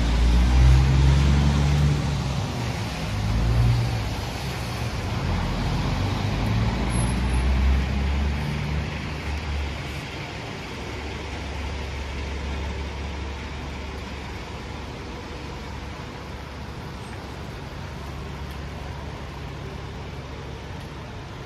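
Articulated city bus engine rumbling close by, loudest in the first few seconds, then easing into steady traffic hum and tyre hiss on the wet street.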